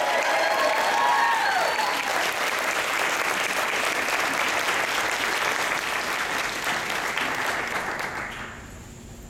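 Audience applauding, with the last held notes of the music fading out over the first couple of seconds. The clapping dies away about eight seconds in.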